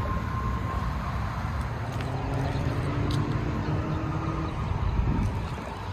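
Jeep on the move: a steady low rumble of engine and road noise.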